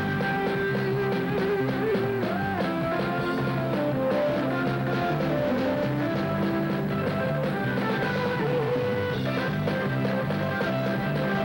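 A band playing music, with a melody line that slides in pitch over a steady bass and drum-kit beat.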